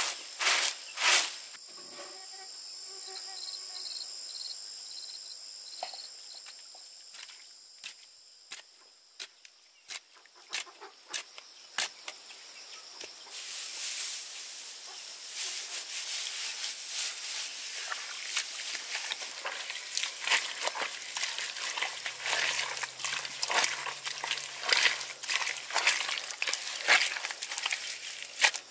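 Insects trilling steadily in the first half, with a few sharp knocks at the very start. From about halfway on comes dense crackling and rustling, with scattered clicks.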